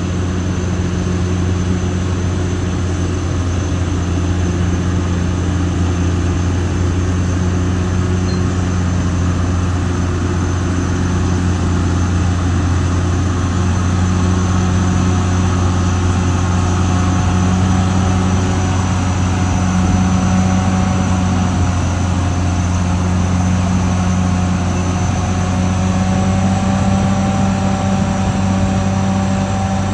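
Caterpillar D6R XL bulldozer's diesel engine running steadily with a low drone. Some fainter higher tones shift slightly in pitch in the last few seconds.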